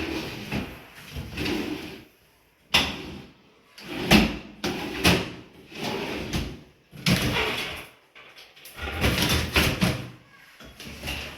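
Aluminium joinery parts being handled and slid into place: a run of separate knocks and scraping clatters, with short pauses between them.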